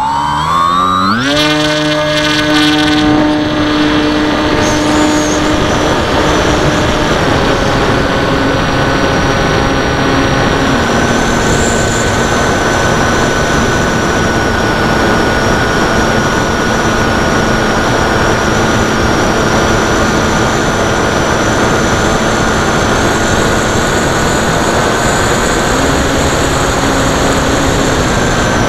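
Zeta Science FX-79 flying wing's electric pusher motor and propeller: the whine rises sharply in pitch as it spools up to full power for launch, reaching speed about a second in, then holds a steady drone with small pitch changes as the plane climbs. Heavy wind rush on the onboard camera's microphone runs under it.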